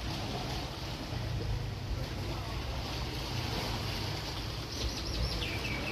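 Seaside ambience: small waves lapping at the shore under a steady low rumble, with a brief high chirping sound near the end.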